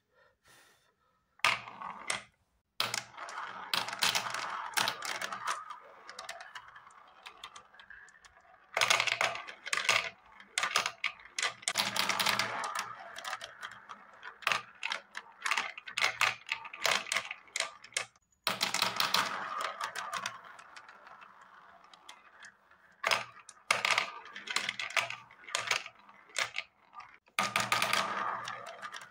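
Balls rolling and clattering around a plastic spiral funnel marble run and dropping through the centre hole onto the tier below: a rapid clicking rattle that comes in several bursts of a few seconds each, with quieter gaps between.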